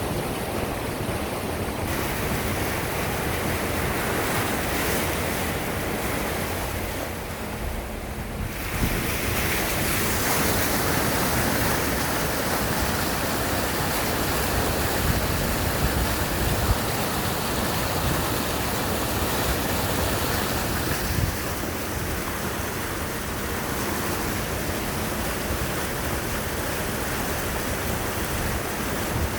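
Rainwater rushing and running steadily after heavy rain, with wind on the microphone. The rush thins briefly about seven seconds in, then comes back fuller.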